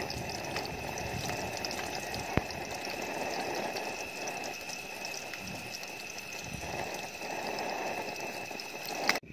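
Small whole fish frying in hot oil in a pan, a steady sizzle with fine crackling, and one sharp click about two seconds in.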